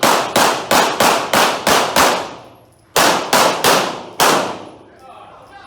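Pistol fired in rapid strings, each shot sharp and echoing: seven shots at about three a second, a pause of about a second, then four more.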